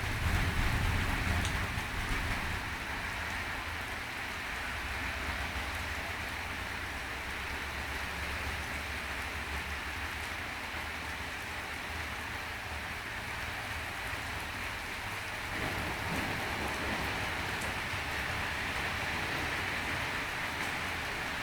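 Steady heavy rain falling during a thunderstorm, with a low rumble in the first couple of seconds.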